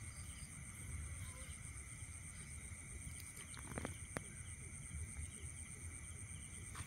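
Night-time chorus of insects around a flooded field ditch, a steady high-pitched trilling, over a low rumble. A couple of faint sharp ticks come about four seconds in.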